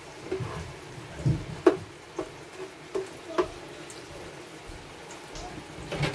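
Thick creamy sauce simmering in a nonstick frying pan with a steady bubbling hiss, broken by about seven sharper pops and knocks from bubbles and a plastic slotted spatula in the pan. The loudest comes nearly two seconds in.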